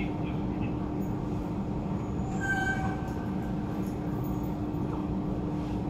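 Steady rumble of an SMRT Circle Line Alstom Metropolis C830C metro train, heard from inside the carriage, with a constant hum. A brief higher tone about halfway through.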